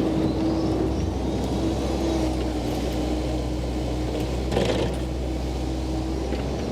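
Komatsu PC88 excavator's diesel engine running steadily at working speed, with a low rumble and a steady tone over it. A short burst of noise stands out about four and a half seconds in.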